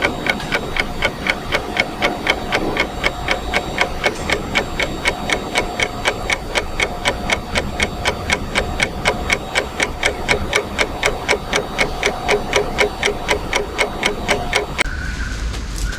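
Jetta clásico's electronic throttle body clicking in a fast, even rhythm, about three to four clicks a second, with a faint steady hum under it; the clicking stops about a second before the end. It is the throttle-body noise of a car that cranks but will not start, with no spark and the engine computer not communicating.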